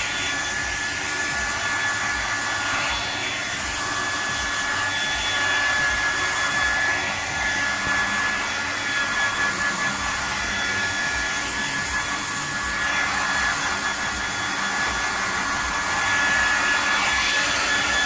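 Handheld hair dryer blowing on a dog's wet fur: a steady rush of air with a thin high motor whine, swelling and dipping slightly as the dryer is moved about.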